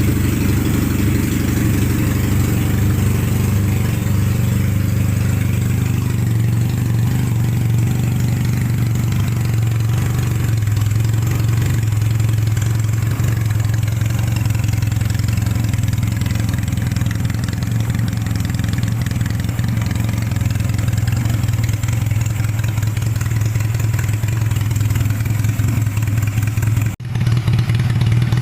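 Yamaha Mio scooter engine idling steadily with a deep, low exhaust note that is likened to a car's. The sound briefly drops out near the end, then resumes.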